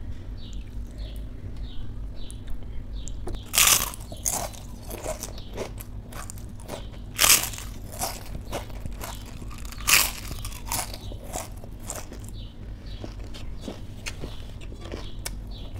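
A person biting and chewing a crisp piece of food, with three loud crunches about four, seven and ten seconds in and smaller crunching and chewing clicks between them.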